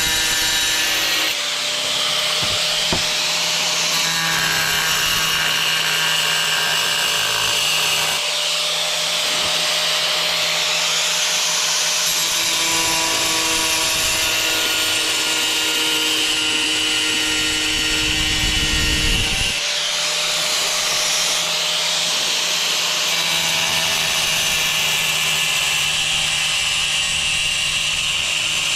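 Angle grinder running steadily as its blade grinds a hole through a tile, a gritty rubbing hiss over the motor's whine, with a brief deeper rumble about two-thirds of the way through.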